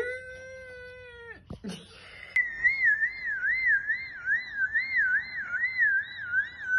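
A baby's held vocal 'aah', then a high warbling siren tone that rises and falls about twice a second, like a car alarm.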